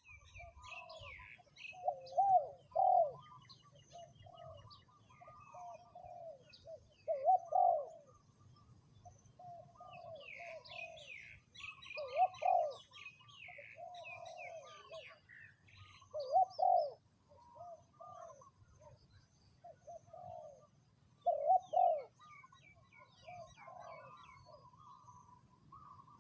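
Spotted dove cooing in repeated low phrases every four to five seconds, with fainter chirps of small birds in between.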